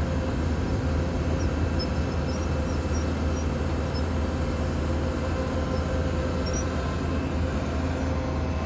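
Heavy engine of harvest machinery running steadily: a continuous low, even drone with no change in speed.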